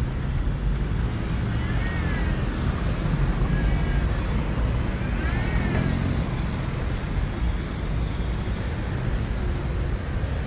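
Steady road traffic from cars and a motorbike passing on a busy city street, under a low rumble. Twice, about two and about six seconds in, a short high tone rises and falls.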